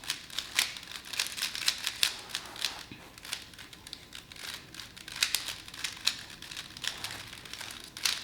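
Rubik's Cube being turned quickly by hand: a fast, irregular run of plastic clicks and rattles as the layers are twisted.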